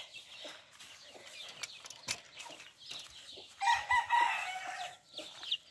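Chickens clucking and chirping, with one short crow from a rooster about three and a half seconds in that lasts about a second and is the loudest sound.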